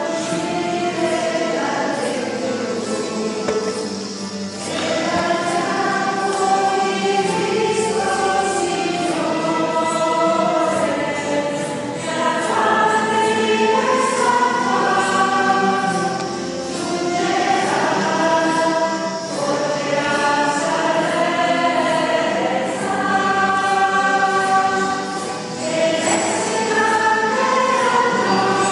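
A group of voices singing a hymn together in phrases, with short breaks between phrases every few seconds.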